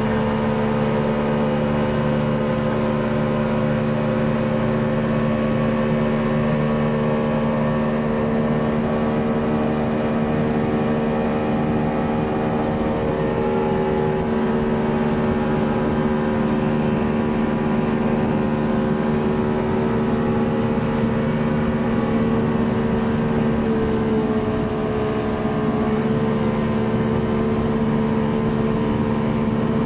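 Motorboat engine running steadily at speed while towing a banana boat, with the rush of water from the wake underneath; the engine note dips slightly about three-quarters of the way through.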